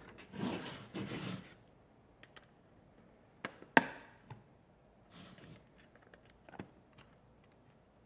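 A hard drive being taken apart by hand: first a scraping rush of metal sliding, as the drive comes out of its metal enclosure, then a handful of sharp metallic clicks and taps as the drive's top cover is worked loose and lifted. One click, a little under four seconds in, is much louder than the rest and rings briefly.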